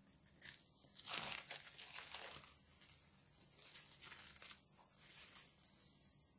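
Plastic cling film crinkling and crackling as it is peeled off the rim of a stainless steel bowl. It is loudest about a second in, with a second, quieter stretch of crinkling a few seconds later.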